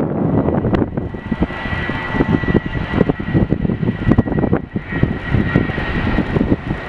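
JetBlue Airbus A320's IAE V2500 turbofans running as the airliner rolls down the runway at speed: a steady high whine over a low rumble, with gusts of wind buffeting the microphone.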